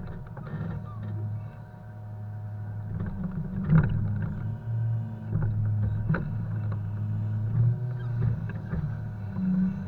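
Volvo FH 520 truck's diesel engine running steadily, with several sharp knocks and clunks of poplar logs being handled during unloading, the loudest about four seconds in.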